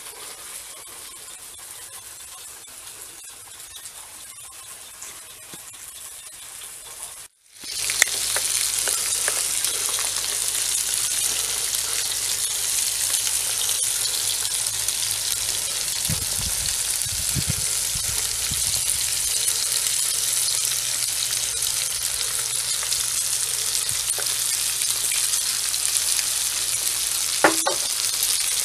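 Salmon steaks and scampi sizzling in an aluminium foil tray on a small grill: a steady, loud sizzle that sets in abruptly about seven seconds in, after a faint quiet stretch. A brief low rumble comes midway, and a single click near the end.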